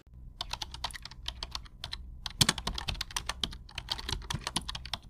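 A fast, irregular run of sharp clicks, several a second, like keys being typed, over a low steady hum.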